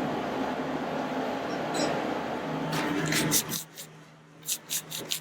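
A steady low background noise that cuts off abruptly, then a kitchen knife stroked back and forth on a whetstone, with short rhythmic scraping strokes about three a second starting near the end.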